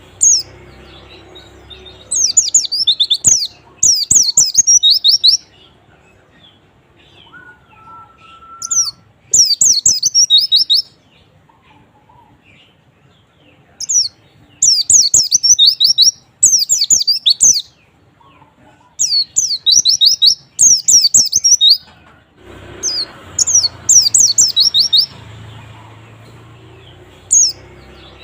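White-eye (pleci) song: bursts of rapid, high-pitched twittering notes, each phrase about a second long, repeated again and again with short pauses between.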